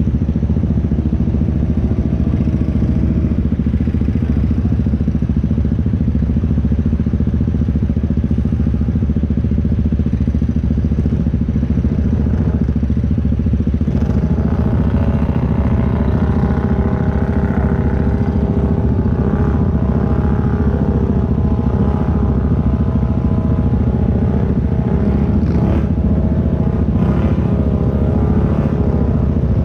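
ATV engine running under load, its pitch rising and falling from about halfway through as the throttle is worked.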